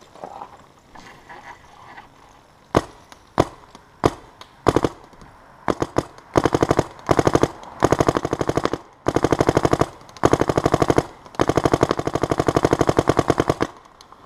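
Dye DM14 electronic paintball marker firing. First come several single shots, then, from about six seconds in, long rapid strings at about 12 shots a second, the marker ramping under its PSP 12.5 setting.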